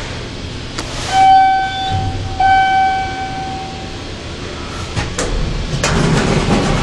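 Otis traction elevator cab chime sounding two steady, even-pitched tones of about a second each as the car reaches its floor. Near the end come a couple of clicks and a louder rumble as the car doors begin to open.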